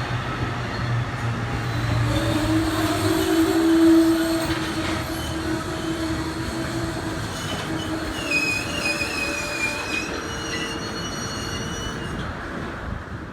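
MARC commuter train moving through the station, its wheels squealing on the rails in drawn-out, wavering high tones. A low rumble runs under it and stops about three seconds in.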